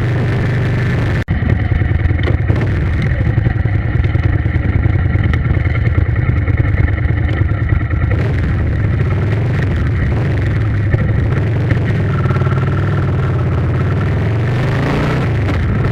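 A steady low engine drone, with a brief dropout about a second in.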